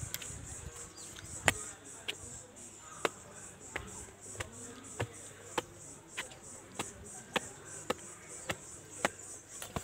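Footsteps climbing concrete steps, a sharp step about every 0.6 seconds in an even rhythm, over a steady high buzz of insects.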